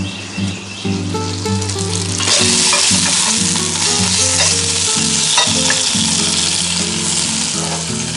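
Chopped bacon sizzling and frying in a hot cast-iron Dutch oven, stirred with a wooden spatula. The sizzle grows louder about two seconds in and stays strong.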